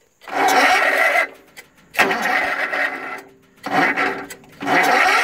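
Electric starter cranking a Lister LT1 single-cylinder diesel in repeated attempts to start it. There are three short bursts of about a second each, each cut off sharply, and a fourth begins near the end.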